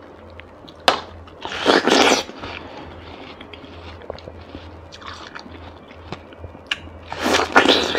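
Close-miked biting and wet chewing of juicy watermelon flesh. There are two louder crunching bites, about two seconds in and again near the end, with a sharp click before the first and small crackles of chewing between them.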